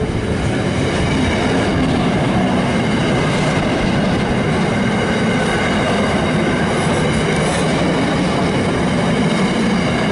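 Freight train wagons rolling past close by: a loud, steady rumble of steel wheels on rail with faint steady high ringing above it.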